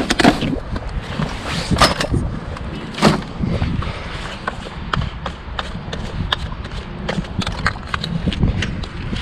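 A large patio umbrella being handled, its frame and ribs knocking and rattling: three sharp knocks in the first few seconds, then a string of lighter clicks and rattles.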